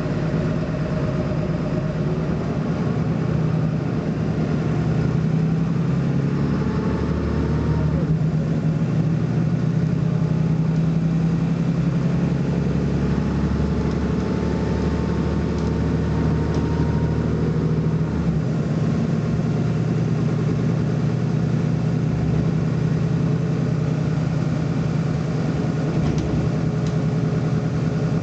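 BMC Belde 220-SLF city bus running steadily with its diesel engine under way. The engine note shifts about 8 and 18 seconds in, and a faint, slowly rising whine runs through the first half.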